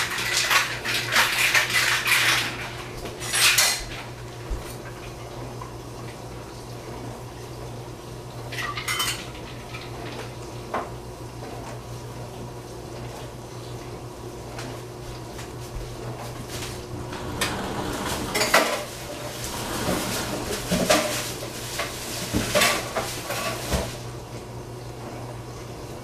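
A cooking utensil scraping and clattering against a pan as eggplant is stirred over the burner. The stirring comes in bursts, busiest at the start and again from about two-thirds of the way through, with single knocks in the quieter stretch between, over a steady low hum.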